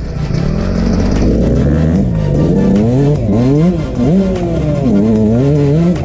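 Dirt bike engine running steadily, then from about two seconds in revving up and dropping back again and again as it is ridden hard.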